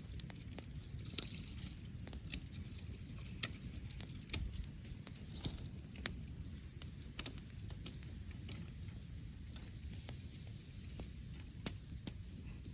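Wood fire crackling, with irregular sharp pops and snaps, the loudest about six seconds in, over a low steady rumble.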